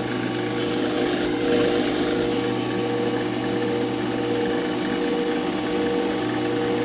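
Power tool motor running with a steady hum while it makes another cutting pass along a slot in a block.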